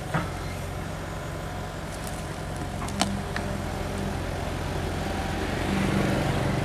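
Sumitomo 265 crawler excavator's diesel engine running steadily as it works, with a few sharp metallic clanks about three seconds in. The engine grows louder near the end.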